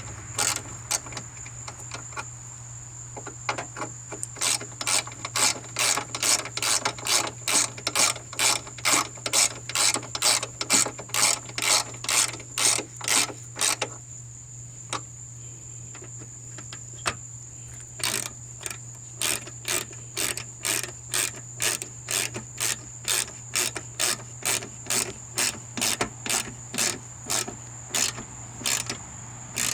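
Hand ratchet wrench clicking in quick, even runs of about three clicks a second as 10 mm headlamp mounting bolts are run in and tightened. There is a pause of a few seconds near the middle.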